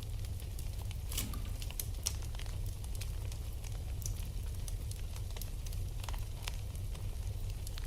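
Wood fire burning in a fireplace: irregular sharp crackles and pops over a steady low rumble and hiss of the flames.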